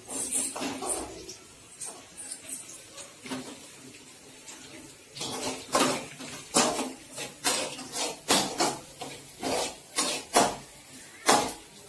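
Metal spoon scraping and clinking against a small steel kadai as noodles are stirred over a gas flame. The strokes come in an uneven run, about one or two a second, starting about five seconds in.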